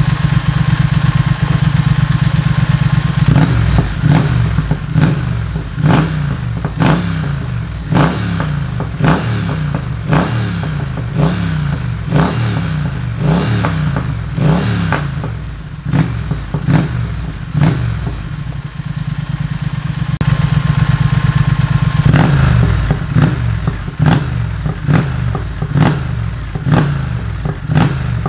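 Triumph Speed Twin 1200's parallel-twin engine, breathing through a British Customs Predator decat exhaust, idling and then revved in repeated quick throttle blips, about one a second. Each blip rises and falls in pitch.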